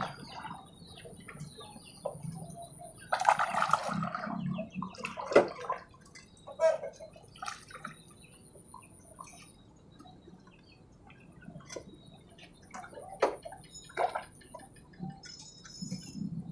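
Pond water splashing and sloshing as a large hooked patin (pangasius catfish) thrashes at the surface beside the landing net, in several irregular bursts, the longest about three seconds in.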